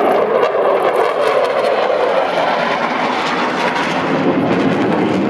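Jet engine of a Belgian Air Force F-16 fighter in display flight: a loud, steady roar whose pitch falls slightly over the first two seconds as the jet passes.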